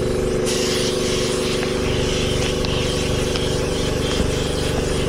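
Air compressor running steadily, with the hiss of a compressed-air gun blowing snow off ski boots starting about half a second in.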